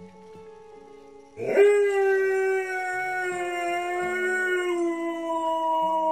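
Siberian husky howling once, long and loud: the howl rises sharply about a second and a half in, then is held while its pitch sinks slowly. It is the howl of a dog left home alone.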